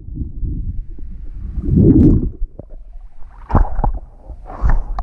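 Water heard through a camera microphone held under murky lake water: a muffled low rumbling and gurgling, loudest about two seconds in. From about three and a half seconds in the camera breaks the surface and there are sharp splashes and drips of water on it.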